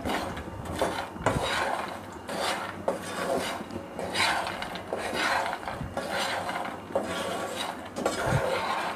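Roasted makhana (fox nuts) being stirred in a small frying pan with a spatula: repeated, uneven scraping of the spatula against the pan as the puffed seeds are turned over, with the odd sharper click. The spices are being mixed into the roasted nuts.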